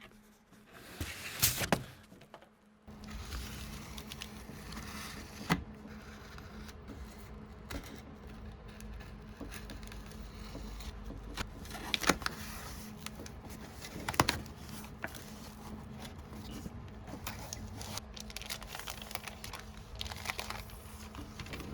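Packaging being handled and opened: rustling and crinkling, with a few sharp clicks and taps, over a steady low hum.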